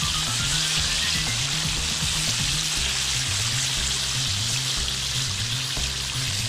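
Breaded panfish fillets (crappie and bluegill) deep-frying in a skillet of hot oil: a steady, even sizzle.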